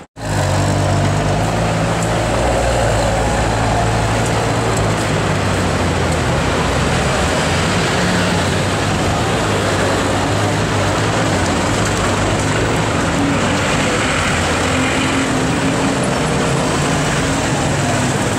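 Ferrari 599 GTO's V12 engine running steadily at low revs as the car moves slowly in traffic. It is loud and close, with general street traffic noise around it.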